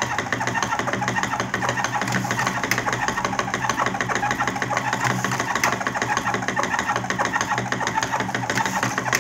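Electric hopper-fed Top-O-Matic cigarette tube-filling machine running, its small motor driving the filling spoon with a steady, rapid mechanical chatter as it stuffs tobacco into empty filter tubes one after another.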